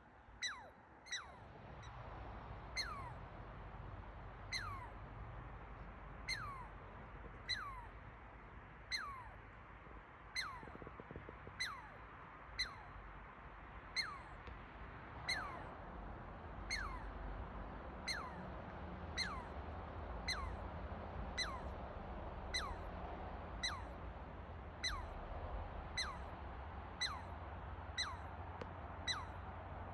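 A chipmunk chipping steadily, about one call a second; each chip is a short sharp note that drops quickly in pitch. A low steady rumble lies underneath.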